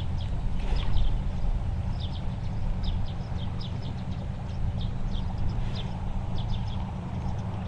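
Strong wind buffeting the microphone as a continuous low rumble, with short high chirps of small birds scattered throughout.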